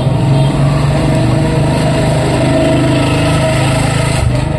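Small engine running loudly and steadily, dropping away a little after four seconds in.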